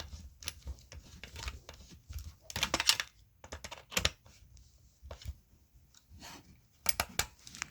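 Plastic and metal clicks and knocks from a fire alarm pull station being handled and reset, in irregular bunches, the loudest cluster of sharp clicks about three seconds in and another near the end.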